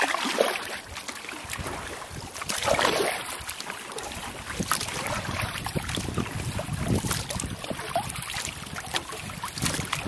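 Paddle strokes splashing and dripping beside a wooden sit-on-top outrigger canoe, with water lapping at the hull. From about four seconds in, wind rumbles on the microphone.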